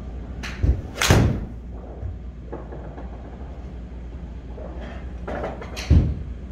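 A 7-iron strikes a teed golf ball off a screen-golf hitting mat, giving sharp knocks about half a second and a second in, the louder second one with a short ring. Another sharp knock comes near the end.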